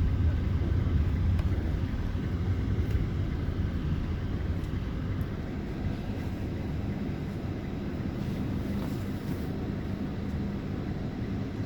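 A vehicle's engine running steadily under way, a low even drone that eases slightly quieter about halfway through.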